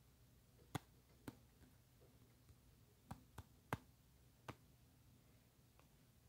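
Near silence broken by about six faint, sharp taps, scattered unevenly: fingertips tapping on a phone's touchscreen.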